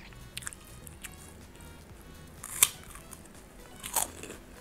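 Close-up mouth sounds of eating rice with fried anchovy and peanut sambal by hand: a few short, sharp wet smacks and clicks of chewing, the loudest about halfway through. Faint background music runs underneath.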